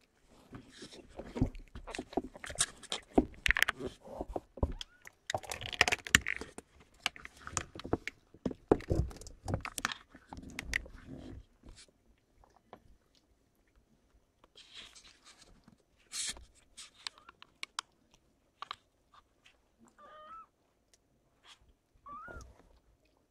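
Close rustling and scraping noises for the first dozen seconds, then sparser clicks. Near the end, two short high mews from young kittens, each rising and falling in pitch.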